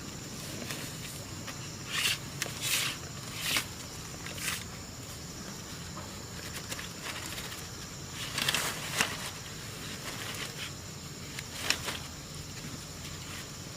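Irregular rustling and crackling in dry forest litter, in short clusters about two to four seconds in, again around eight to nine seconds, and once more near the end, over a steady outdoor background.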